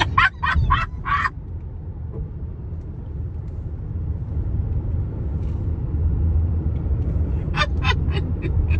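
Steady road and engine rumble inside a moving Jeep's cabin, with short bursts of laughter in the first second and again near the end.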